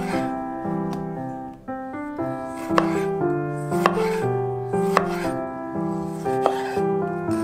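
Chef's knife slicing through a tomato and knocking on a bamboo cutting board, a sharp knock roughly once a second, over light background music.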